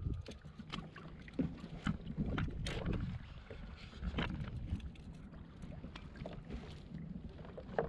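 Wind rumbling on the microphone and water sloshing against a kayak's hull, with many light clicks and taps scattered through it.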